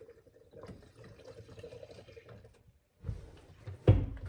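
Gasoline being poured from a no-spill gas can into a chainsaw's fuel tank, a faint steady trickle. Two knocks follow near the end.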